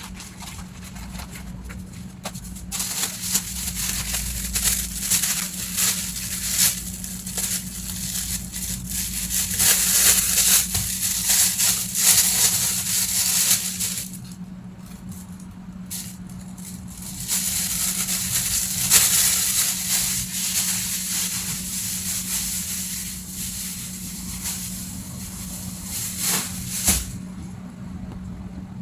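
Plastic shopping bags crinkling and rustling as groceries are handled and packed, in two long spells of crackly handling noise with a quieter pause in the middle.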